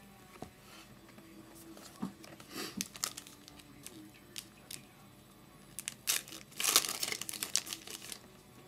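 A card pack's wrapper being torn open and crumpled in the hands, with irregular crinkling and tearing. The loudest crinkling comes about six to eight seconds in.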